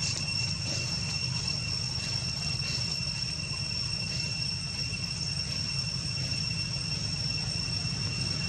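Insects calling in an unbroken high-pitched drone, over a steady low rumble.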